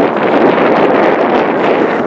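Wind buffeting the microphone as a loud, steady rush of noise.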